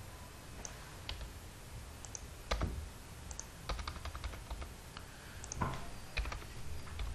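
Computer keyboard keystrokes and mouse clicks at irregular intervals, with a quick run of keystrokes around the middle, over a faint low hum.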